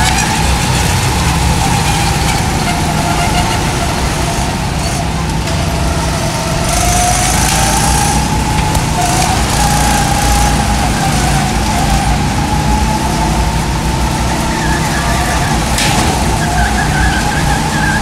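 Go-kart driving around an indoor track, heard from on board: a motor whine that rises and falls in pitch as the kart speeds up and slows through the turns, over a steady rumble of tyres and wind.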